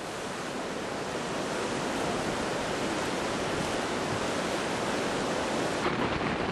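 Steady rush of whitewater in a river rapid, with some wind noise on the microphone.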